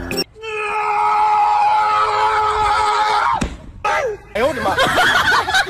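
A long, steady, high-pitched cry held for about three seconds, ending in a downward glide, followed by several shorter wavering cries.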